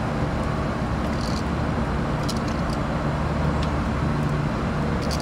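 Steady mechanical drone of rooftop HVAC equipment running, a constant hum with a rushing air-like noise. A few faint clicks come from wires being worked into a GFCI receptacle.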